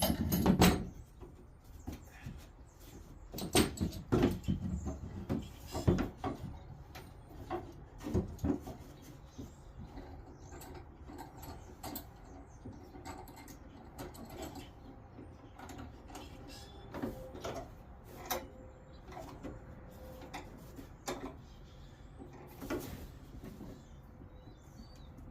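Irregular knocks, clicks and light scrapes of wood and tools being handled in a workshop, louder in the first several seconds and sparser after, over a low steady hum.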